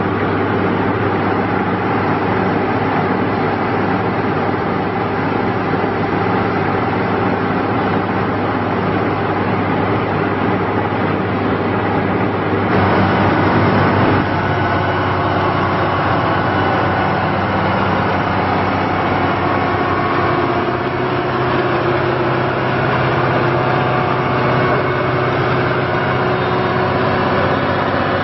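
Ingersoll Rand Blaw-Knox PF-5510 asphalt paver's Cummins diesel engine running steadily, with a short louder stretch about halfway through and a slight change in engine note about two-thirds of the way in.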